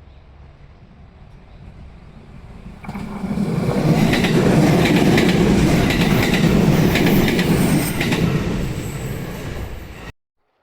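A Hakubi Line electric train passing close by, its wheels clacking over the rail joints. It builds up from about three seconds in, stays loud for several seconds, then cuts off suddenly near the end.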